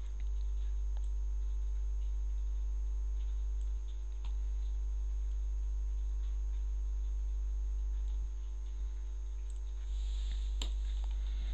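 Steady low electrical mains hum on the recording, with a few faint computer mouse clicks. The clearest click comes about ten and a half seconds in.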